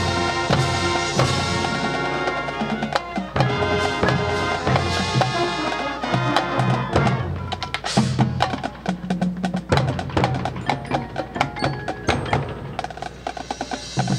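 Marching band playing its field show: sustained brass and woodwind chords over drums and front-ensemble percussion, with frequent sharp percussion hits and a loud crash about eight seconds in.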